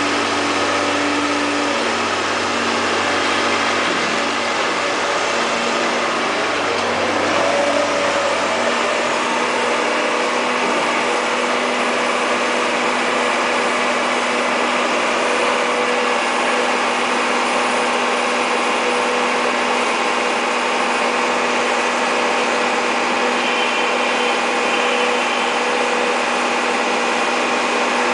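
Caterpillar E240B excavator's diesel engine running steadily under working load, with a low hum that drops away about nine seconds in.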